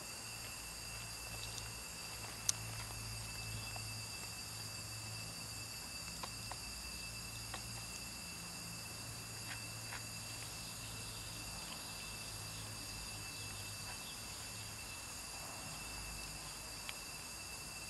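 Two cats eating dry kibble from a plastic tub, with scattered faint crunches and clicks and one sharper click about two and a half seconds in. Under it runs a steady high-pitched insect chirring and a low hum.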